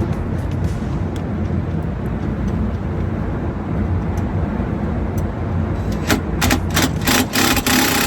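Steady low mechanical rumble, with a run of sharp knocks and a rush of noise near the end.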